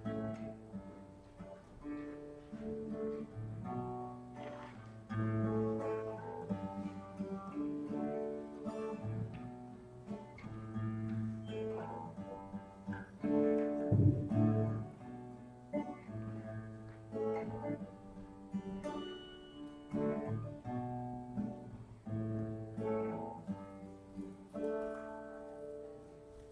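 Acoustic guitar playing a slow chord progression with no singing, with one louder low thud about halfway through.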